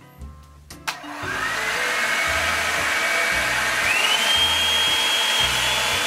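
Revlon One Step hot-air brush switched on with a click about a second in: its blower motor whines up to speed with a steady rush of air, and the whine jumps higher in pitch about four seconds in.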